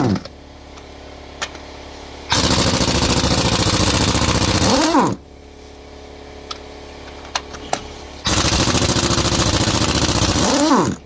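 Impact wrench running in two bursts of about three seconds each, loosening bolts on a Caterpillar 3406B cylinder head. Each burst ends in a brief rising-and-falling whir.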